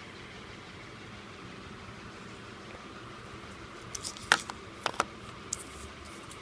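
A handful of short, sharp clicks and taps, most of them bunched together about two-thirds of the way through, over a steady low hiss.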